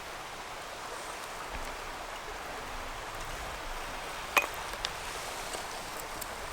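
Sticks and kindling being laid into a fire lay: a steady outdoor hiss with one sharp snap of wood about four seconds in and a few faint ticks after it.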